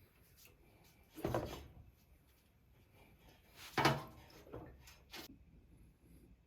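Knocks and clunks of motorcycle parts and tools being handled during rear wheel and pivot pin work: two loud knocks a couple of seconds apart, then a few lighter ones.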